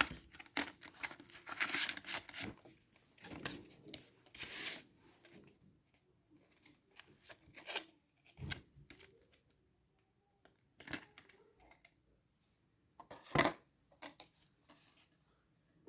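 Hands handling plastic packaging: crinkling and tearing for about five seconds, then a few scattered clicks and knocks, the loudest about 13 seconds in.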